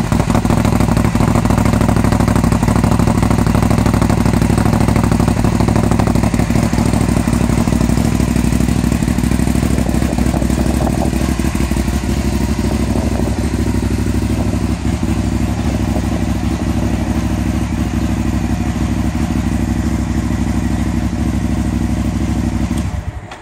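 2008 Aprilia Shiver 750's V-twin idling steadily through LeoVince SBK exhausts, settling slightly quieter about halfway through. Near the end it is switched off with the key and the engine sound cuts off.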